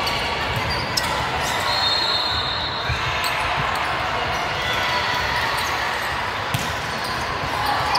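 Volleyball rally on a gym court: sharp hits of the ball, one about a second in and another a little past six seconds, over a steady background of spectators' voices.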